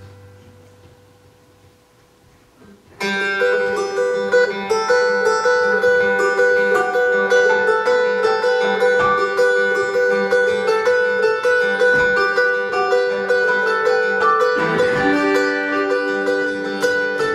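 Acoustic string band playing live without singing: a held note dies away over the first three seconds, then banjo, acoustic guitar, upright bass and fiddle come in together on a busy instrumental break. The tune shifts to new notes about fifteen seconds in.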